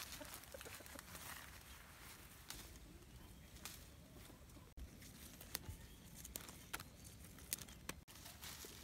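Faint rustling of chili bush leaves and a thin plastic bag as chili peppers are picked by hand, with scattered small clicks from about the middle on, over a low outdoor rumble.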